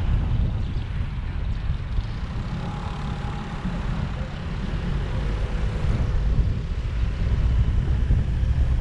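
Steady low rumble of a car on the move: road and wind noise, with a faint whine coming and going in the middle.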